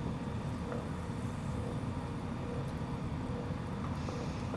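Steady low rumbling noise at a lit gas stove where a pan of Coca-Cola is boiling.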